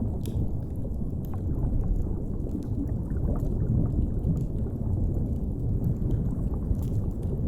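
Steady low underwater rumble of deep-sea ambience, with a few scattered faint crackles from a fireplace fire.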